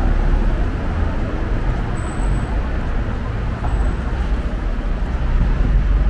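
City street traffic: a steady rumble of cars and other vehicles passing along a busy boulevard.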